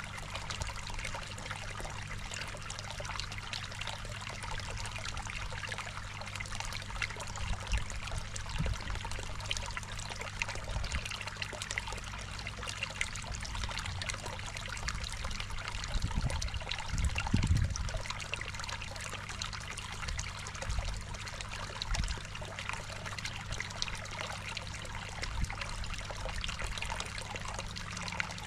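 Water trickling and splashing steadily into a garden koi pond, over a steady low hum, with a brief low rumble a little past halfway.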